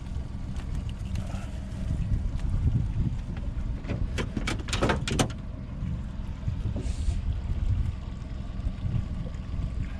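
Low, gusting wind rumble on the microphone in an open boat, with a quick run of sharp clicks and rattles about four to five seconds in.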